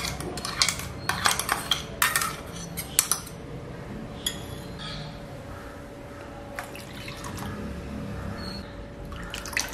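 A spoon clinks and scrapes against a steel mixer jar and a ceramic bowl as blended paste is scraped out and stirred into liquid, with a quick run of clicks in the first three seconds. Later, rinse water is poured from the jar into the bowl.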